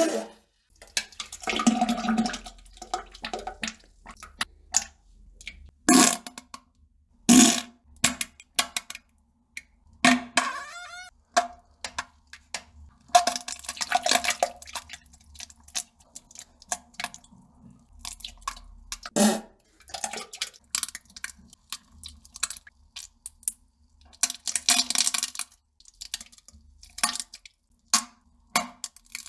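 A bowel movement into a toilet: irregular plops, splashes and fart bursts, some loud, separated by short pauses, with a longer pitched fart about ten seconds in.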